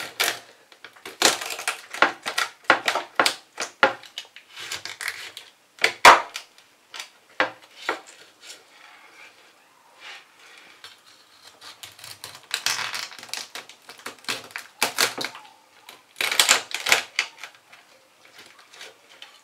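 Chef's knife cutting a cooked lobster in half lengthwise through its shell on a wooden chopping board: irregular crunching cracks of the shell and knocks of the blade on the board, in clusters with quieter gaps, the sharpest crack about six seconds in.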